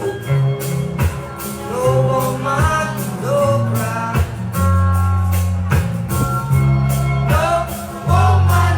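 Reggae music with a deep, sustained bass line and regular percussion strikes, joined by a singing voice from about two seconds in.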